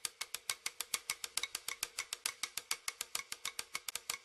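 Typing sound effect for on-screen text appearing letter by letter: rapid, even clicks about ten a second, over a faint steady hum.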